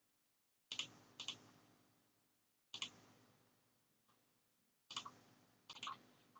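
Faint computer mouse clicks: single clicks spaced a second or two apart, then a quick run of three close together near the end.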